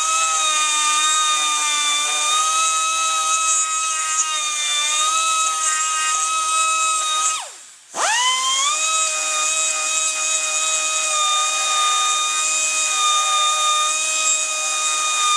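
Pneumatic die grinder running at a steady high whine with air hiss while grinding the cut ends round. About halfway through it is let off, winds down, and starts up again a moment later.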